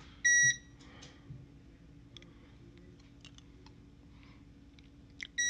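Minuteman Entrust ETR700 uninterruptible power supply beeping its on-battery alarm: two short, high beeps about five seconds apart, the sign that mains power is cut and the unit is running on its battery. Faint scattered clicks fall between the beeps.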